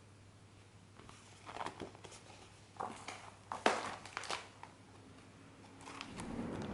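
Trading cards and their packaging handled by hand: a run of irregular rustles and clicks over a low steady hum. A steady rushing noise rises near the end.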